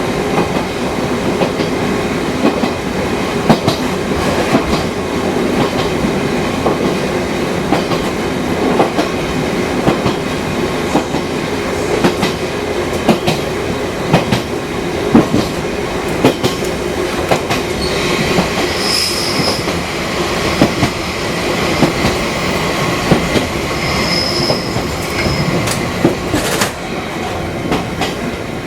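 Fukui Railway Type 200 electric train running along the line: a steady rumble with frequent sharp clicks of the wheels over rail joints. Two brief high-pitched wheel squeals come about two-thirds of the way through.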